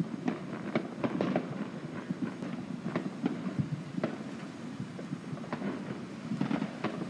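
Distant fireworks and firecrackers going off, with irregular sharp pops and bangs, a couple a second, over a steady low rumble.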